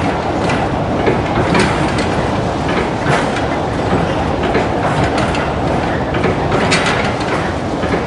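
Windmill mechanism recorded close up, clattering and knocking irregularly over a continuous rumbling noise.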